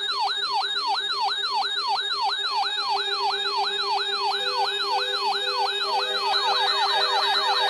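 Electronic emergency-alert alarm tone: a siren-like sweep falling in pitch about three times a second over a steady low tone. Short beeps join about four seconds in, and the sweeps speed up near the end.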